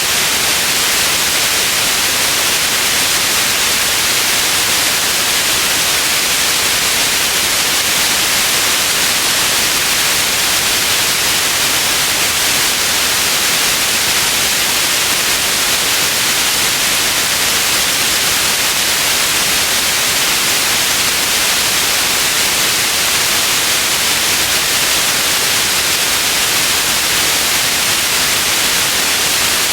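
Steady, loud white noise: an even, unchanging hiss, bright and treble-heavy.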